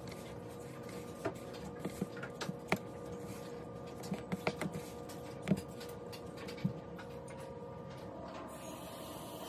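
Scattered light taps and rustling of green tomato slices being pressed and turned in dry fish-fry breading in a plastic bowl, over a faint steady hum.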